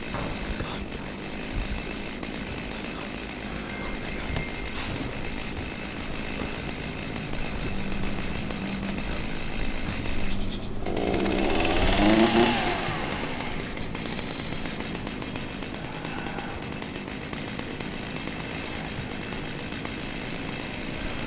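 Chainsaw engine running steadily, revving up briefly with a rising pitch about eleven to thirteen seconds in.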